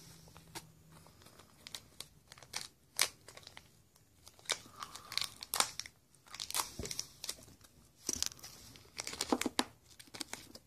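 Small packaging being crinkled and torn open to take out a new fishing-reel bearing: irregular short rustles and small clicks.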